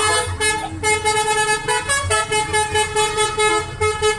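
Bus's Basuri telolet multi-tone horn playing a melody in fast pulses, about four a second, with the notes changing about halfway through.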